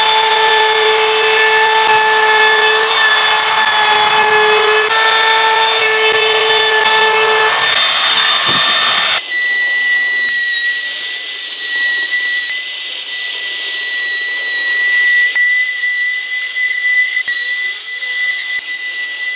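Power tool motor running at a steady speed with a strong whine. About nine seconds in it changes abruptly to a higher, thinner whine.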